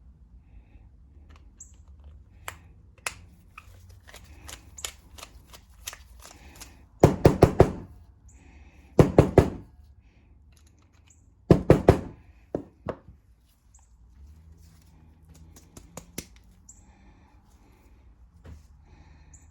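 Hand tools and small metal carburetor parts being handled: scattered light clicks and taps, with three short bursts of rapid knocking about seven, nine and eleven and a half seconds in.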